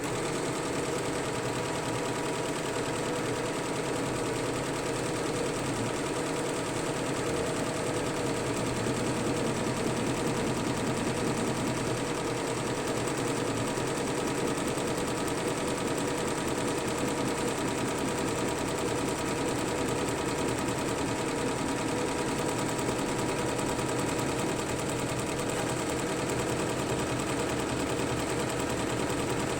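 Fuwei single-head, 15-needle computerized embroidery machine stitching steadily at speed, a fast, even run of needle strokes.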